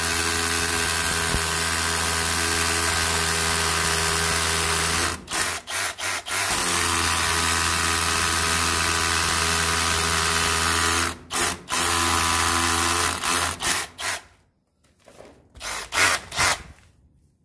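Milwaukee M12 cordless rotary hammer running steadily, its trigger released briefly twice, then pulsed in several short bursts near the end before stopping.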